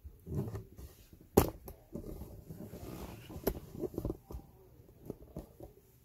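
Irregular rustling and scuffing of a handheld phone camera being moved, with a few sharp clicks, the loudest about one and a half seconds in.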